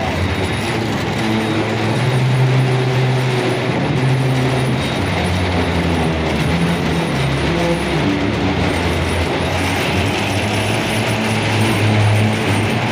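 A train running on the line: a steady low drone with rumbling track noise.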